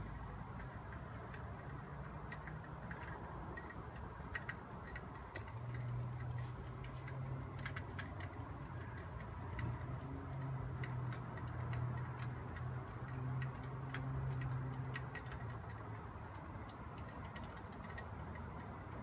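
Wet snow falling, with scattered light ticks of flakes and drips landing on surfaces close by. A low steady hum comes in about five seconds in and fades out near the end.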